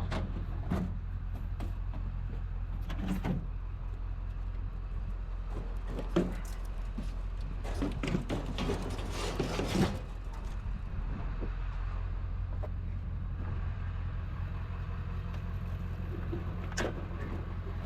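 Vehicle engine idling steadily, with scattered knocks and a clatter of handling noise from about eight to ten seconds in.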